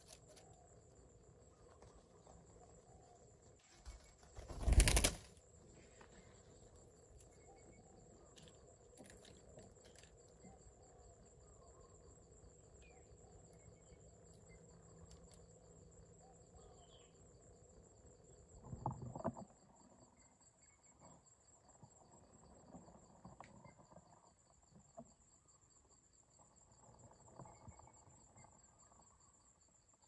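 Steady high insect chirring in the background, with a loud, brief flutter of parakeet wings about five seconds in and a softer flutter and rustle around nineteen seconds.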